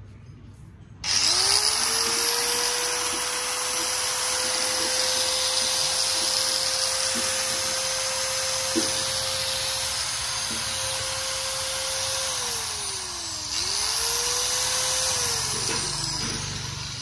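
Hitachi 100 V, 720 W angle grinder switched on and running free with a steady high whine, which a seller judges to run fine. About twelve seconds in it is switched off and winds down, then is switched on briefly again before winding down near the end.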